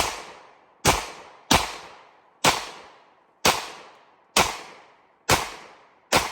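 Glock 30S .45 ACP pistol firing eight shots in slow succession, a little under a second apart. Each shot is a sharp crack followed by a short fading echo.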